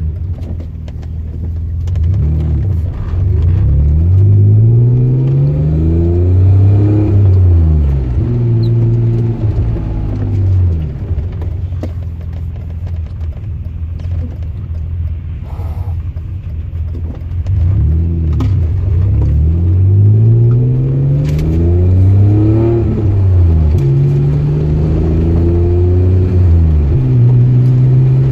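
E34 BMW's engine pulling the car up to speed. The engine note climbs, holds steady, drops back, then climbs again about two-thirds of the way through and settles at a steady cruising note.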